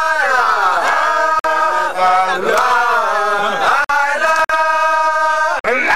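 A group of Baye Fall men chanting together, holding long drawn-out notes that slide up and down in pitch. The sound cuts out for an instant several times.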